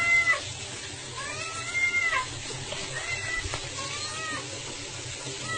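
A kitten meows repeatedly, about five short calls, each rising and then falling in pitch. They are the worried, insistent meows of a cat alarmed at someone lying in the bath.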